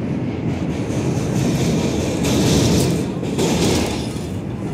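R142 subway car running on the rails, heard from inside the car: a steady rumble and rush of wheel and track noise that grows louder about halfway through.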